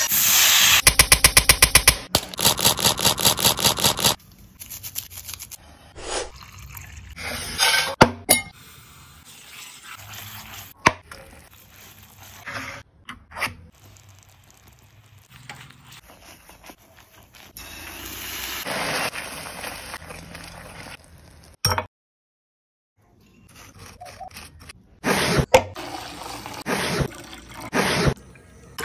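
A run of sounds from cooking caramel syrup in a stainless steel pan: rapid clicking at the start, then the pan being handled, sugar syrup bubbling, and liquids being poured and stirred, with scattered knocks of utensils.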